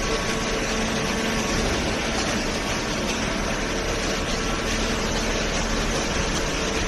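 Hydraulic cardboard baler's motor and pump running steadily, a constant noisy hum.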